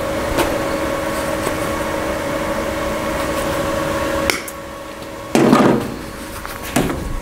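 Steady electric hum from an inverter MIG welding machine, which cuts off abruptly about four seconds in. Two short, louder noisy bursts follow near the end.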